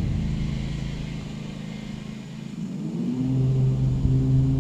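Lawn mower engine running, fading and dropping in pitch, then picking up again with a rising pitch about three seconds in.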